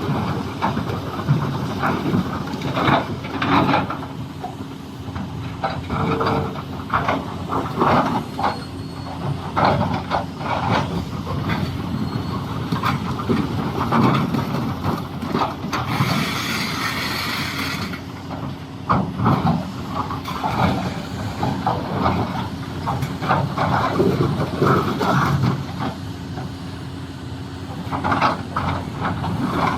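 Doosan DX390 excavator's engine running steadily under working load, with repeated knocks and scraping as rock clatters against the bucket. A brief hiss comes a little past halfway.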